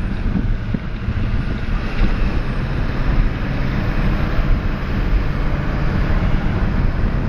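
Vehicle engine running steadily with road and wind noise while driving, heard from inside the vehicle.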